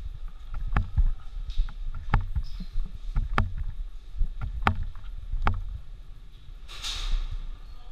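Airsoft guns firing single shots: sharp, isolated cracks at irregular intervals, about one a second. Under them runs low thumping and rumble from the camera wearer moving, with a brief hiss near the end.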